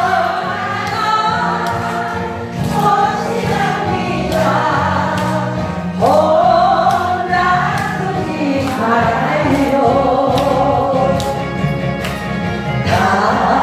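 Korean trot song playing: a melodic lead line over a steady backing track, with voice-like parts heard as choir or singing.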